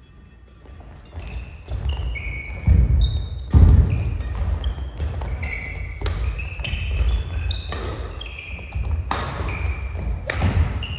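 Doubles badminton rally on a wooden gym floor: many short, high squeaks from court shoes, sharp racket-on-shuttlecock hits, and thudding footfalls. It is quiet for the first second. The heaviest thuds come about three and four seconds in.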